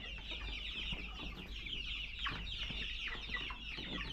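A flock of young chickens peeping, many short high chirps overlapping into a continuous chorus.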